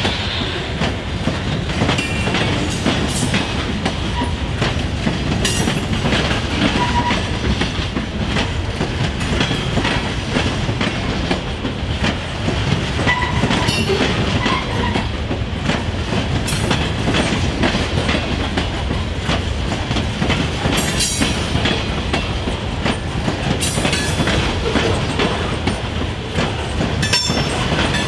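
Freight train cars rolling past with a steady rumble and repeated clicks of the wheels over rail joints, and a few short, faint wheel squeals near the middle.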